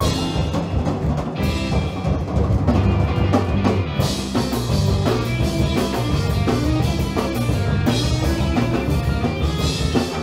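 A live band playing loudly. A drum kit is played hard with frequent cymbal crashes over steady bass notes and guitar.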